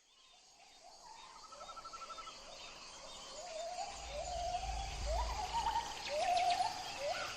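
Outdoor ambience fading in from silence. Over a steady hiss, a bird's short call rises and then holds level, repeating about every half second, with a brief pulsed trill early on and a low rumble around the middle.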